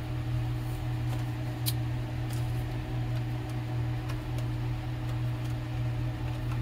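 Steady low background hum, with a few faint light clicks, typical of small parts being handled.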